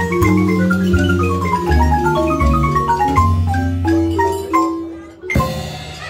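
A large Guatemalan chromatic marimba played by several mallet players in quick descending runs, over a double bass line. Near the end the music thins out briefly and then comes back in with a sharp accent.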